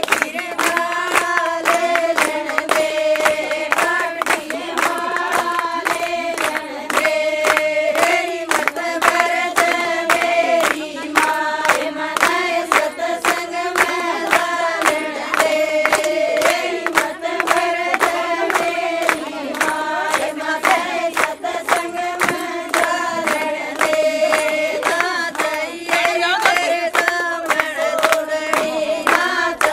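A group of women singing a Haryanvi folk song together, with steady hand-clapping keeping the beat.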